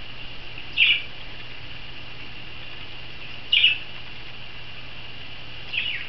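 Three short, sharp chirps from a small pet parrot (budgie or lovebird), two to three seconds apart, over a steady faint hiss.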